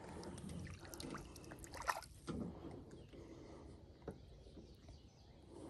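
Faint water trickling and dripping around a kayak, with a few light knocks about two and four seconds in.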